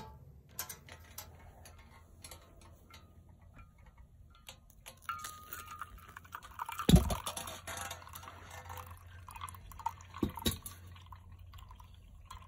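Hot water poured from a camp pot into a pour-over coffee filter over a mug, with scattered clinks of metal and a thump about halfway through.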